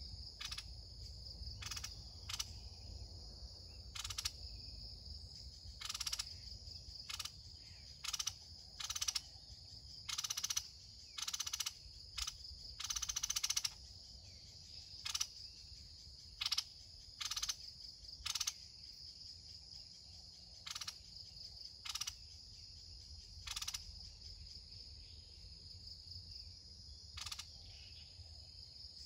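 Red-whiskered bulbuls calling in short, sharp bursts, about twenty over the stretch and thickest around the middle, over a steady high drone of insects.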